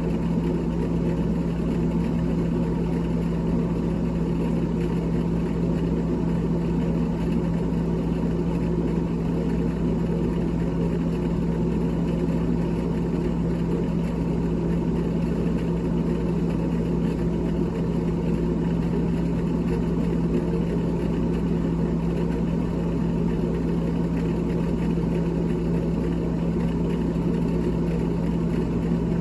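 Steady electric motor hum, even and unbroken, with a strong low drone and a noisy whir above it.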